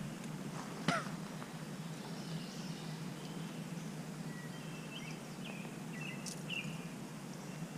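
Birds calling in the background: several short, high chirps and whistles over a steady low outdoor rush. There is one sharp click about a second in.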